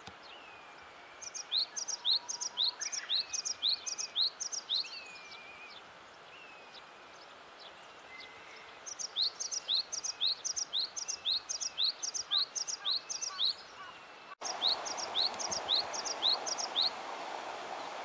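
Japanese tit (shijūkara) singing its repeated two-note 'tsu-pi tsu-pi' song in three runs of about a dozen quick phrases each, high-pitched. Another bird gives faint down-slurred calls underneath.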